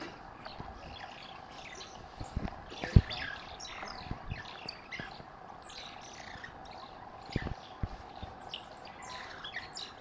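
A group of banded mongooses chirping while mobbing a snake, many short, high, falling squeaks overlapping one another. A few dull thumps come through, the loudest about three seconds in.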